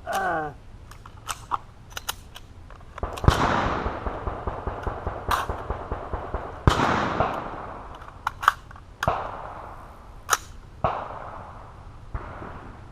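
Irregular gunfire from several shooters, AR-style carbines and pistols firing strings of shots. A few loud close shots each trail off in a short echo, among many fainter, more distant ones.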